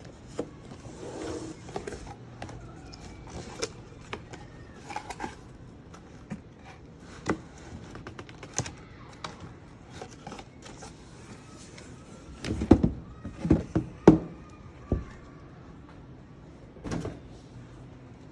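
Hands handling a laptop's box and packaging: scattered taps, clicks and rustles, with a cluster of louder knocks and thuds about two-thirds of the way through and another thud near the end.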